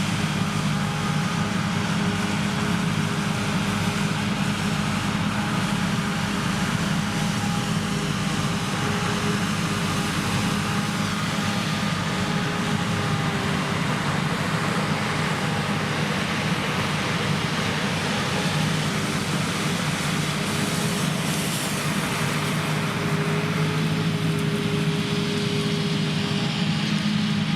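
Krone Big X 1100 forage harvester working under full load: its V12 diesel and chopper running steadily as it harvests triticale, a constant mechanical drone with several held tones.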